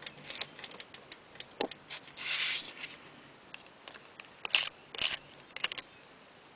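Nail-polish scraper drawn across a metal stamping plate to clear off black polish, in two quick scraping strokes about four and a half and five seconds in. Small clicks and taps of handling come around them, with a longer rasping noise about two seconds in.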